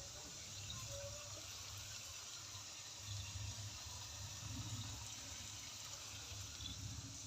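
Gas stove burner running under a pan of cooking sabzi: a low, uneven rumble with a faint steady hiss.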